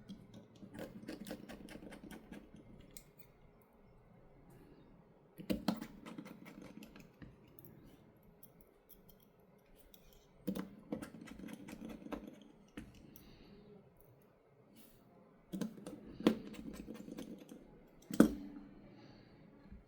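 Small precision screwdriver and tools working tiny screws into a Samsung Galaxy S23 Ultra's frame: four short bursts of fine clicking and scraping, with a few sharper taps of metal on the phone.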